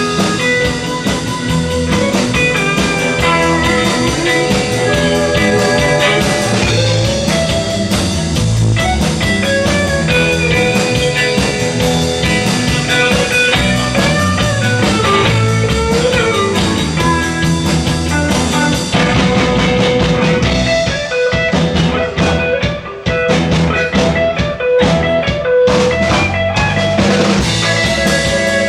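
Sixties-style rock band playing an instrumental passage: a guitar lead line over bass and drum kit. In the last third the band plays short stabs separated by brief gaps.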